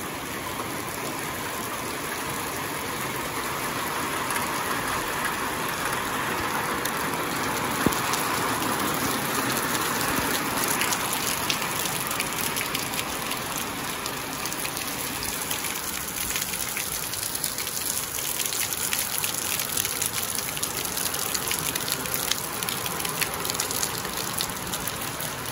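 Steady summer rain falling on a wet concrete yard: a continuous hiss of rain with the patter of drops. Sharp close drop ticks grow frequent from about ten seconds in, and one louder tap comes about eight seconds in.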